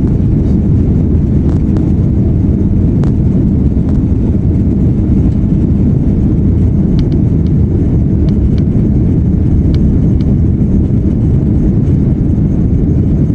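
Airbus A330-300 airliner heard from inside the cabin during take-off: a loud, steady low rumble of the jet engines and rushing air, with a few faint ticks.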